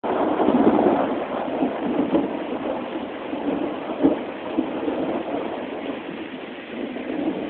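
Steady rushing noise of a thunderstorm's wind and rain, slowly easing off, with a single sharp knock about four seconds in.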